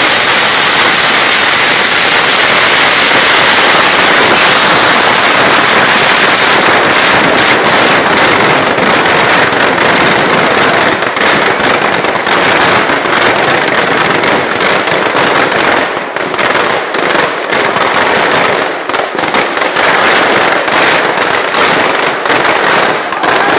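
Firecrackers in a burning Ravana effigy going off in a loud, dense, unbroken crackle, the cracks coming thicker after the first several seconds.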